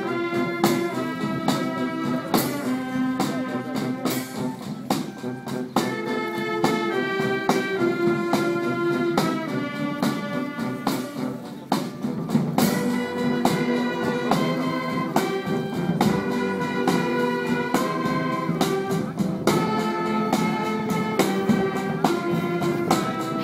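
Marching band playing live: brass horns carrying a melody of held notes over regular drum strikes.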